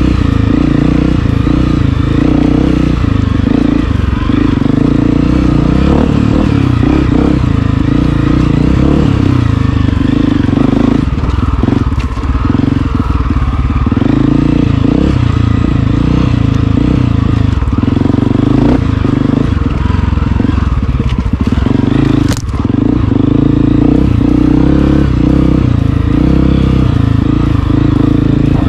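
Honda CRF250F's single-cylinder four-stroke engine working along a tight dirt trail, its revs rising and falling as the throttle opens and closes. Two brief dips in the engine note, and a sharp crack near the second one.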